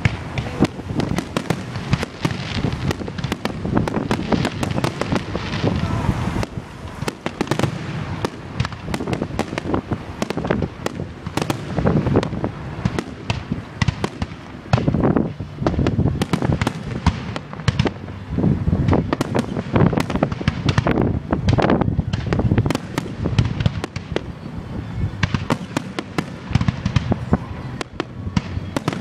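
Fireworks display: a continuous barrage of sharp bangs and crackling explosions, many a second, with deeper thuds of larger shells mixed in.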